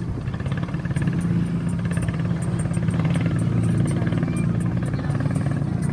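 A steady low engine drone running without a break.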